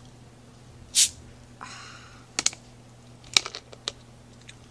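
Plastic Coke bottle being twisted open: a sharp hiss of escaping carbonation about a second in, then a softer fizzing hiss and several sharp clicks from the cap and bottle.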